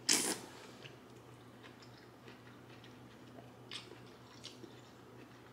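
A loud slurp of pho rice noodles right at the start, then quiet chewing with small wet mouth clicks and a shorter slurp a little before the end.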